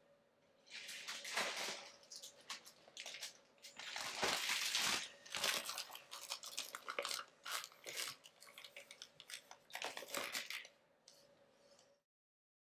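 Clear plastic bags holding raw burger patties crinkling and water sloshing as the bagged patties are lowered into a pot of water for a water-bath cook, in irregular bursts. The sound cuts off suddenly near the end.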